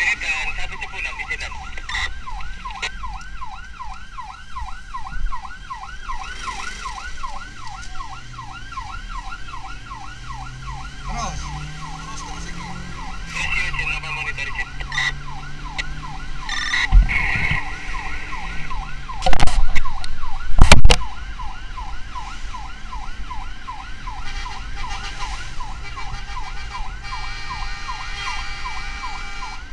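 Ambulance siren sounding a rapid yelp, its pitch rising and falling about three times a second. About two-thirds of the way through, two loud knocks or rumbles drown it briefly. Near the end the siren changes to a steadier tone.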